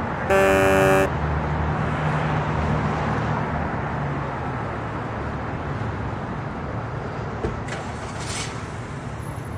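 A single flat horn honk lasting under a second, followed by a steady low vehicle rumble that slowly fades.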